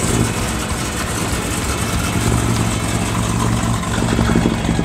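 Car engine idling steadily with a low, even hum.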